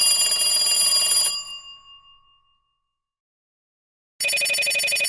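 Mobile phone ringtones. One ringtone cuts off about a second in, and its tones ring out and fade over the next second. After a short silence, a telephone-bell-style ringtone with a rapid trill starts near the end.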